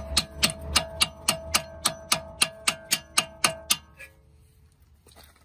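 Hammer blows on metal, about four a second and each ringing, driving a new wheel stud into the wheel hub so that it seats flush. The strikes stop a little before four seconds in.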